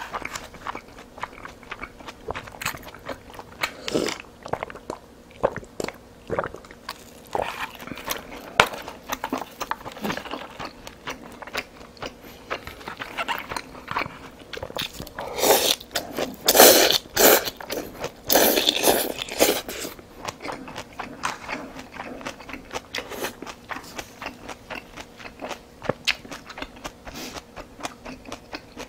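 A person eating close to the microphone: steady chewing with many small wet clicks and smacks, and a run of louder slurps from a bowl of bean sprout soup held to the mouth about halfway through.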